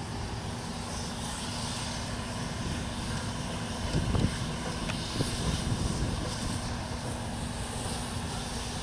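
QJ-class 2-10-2 steam locomotive No. 7081 working a passenger train toward the listener: a steady low rumble of exhaust and running gear, with a few louder beats about four to six seconds in.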